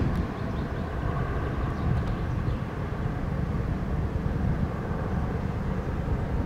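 Goodyear Zeppelin NT airship's propeller engines making a steady drone as it passes overhead.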